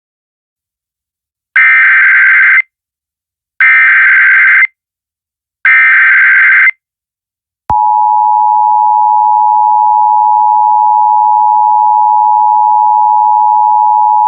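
Emergency Alert System alert opening an immediate evacuation order. Three one-second bursts of the SAME digital header, warbling data tones about two seconds apart, are followed about 7.5 seconds in by the steady two-tone EAS attention signal.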